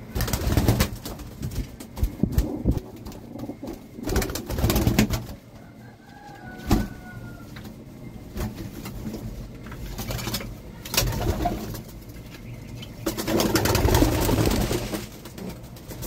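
Domestic pigeons flapping their wings in bursts as they flutter onto a hand to feed, the longest burst near the end, with pigeons cooing.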